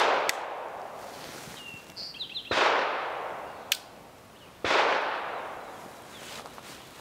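Suppressed Kel-Tec P17 .22 LR pistol fired three times, roughly two seconds apart, one shot right at the start; each shot is a sharp crack with a long fading tail. A couple of small light clicks fall between the shots.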